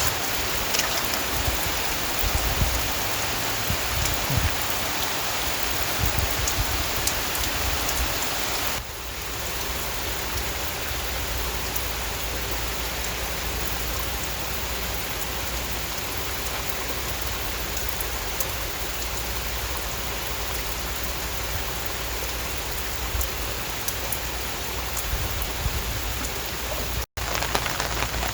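Steady heavy rain: a constant hiss of falling water with fine drop ticks, dipping slightly in level about a third of the way in and breaking off for an instant near the end.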